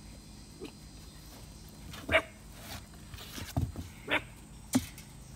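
A dog barking: a few short barks, the loudest about two seconds in.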